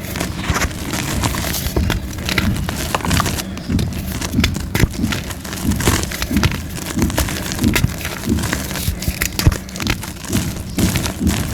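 Soft white gym chalk being crushed and crumbled into powder, a continuous run of soft, irregular crunches.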